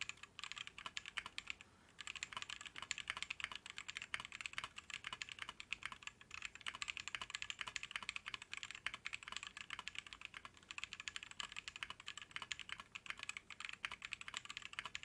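Fast typing on a custom mechanical keyboard with Holy Panda tactile switches, a brass plate and Matrix keycaps: a steady run of quick keystroke clacks, with a short pause about two seconds in.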